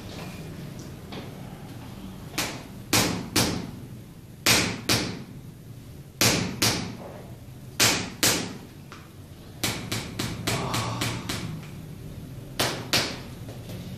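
A green stick struck repeatedly against the sole of a bare heel: firm, sharp strikes mostly in pairs about half a second apart, with a quicker run of lighter taps around two-thirds of the way through. This is percussion massage for a heel spur.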